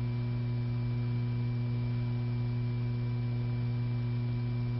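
Steady electrical mains hum on an old film soundtrack: a low, unchanging hum with fainter higher tones stacked above it. No mechanism sound is heard.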